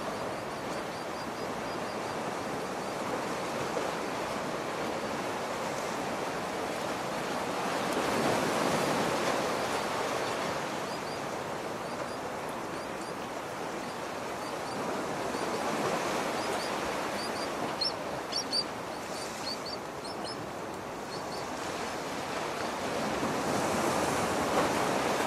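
Sea waves washing onto the shore, a constant surf hiss that swells roughly every eight seconds as waves break. About three-quarters of the way in, a brief cluster of short, sharp high clicks sits over the wash.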